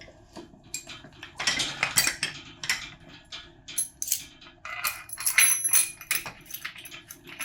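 Steel bolts and metal parts clinking and rattling against each other as they are handled, in irregular clusters of knocks with a brief metallic ring a little past halfway.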